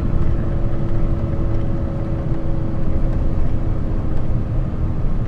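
Inside a heavy lorry's cab on the move: the diesel engine and road noise make a steady low rumble with a held hum that fades out near the end.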